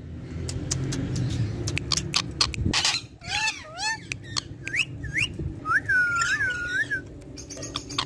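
Indian ringneck parakeet whistling: from about three seconds in, a string of short notes that swoop up and down, then a longer wavering whistle. Before that, a low rumble with a few sharp clicks.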